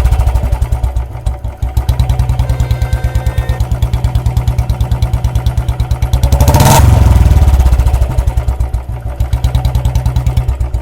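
Royal Enfield Bullet BS6 single-cylinder fuel-injected engine running with its steady thump, blipped once on the throttle about six and a half seconds in. It does not backfire.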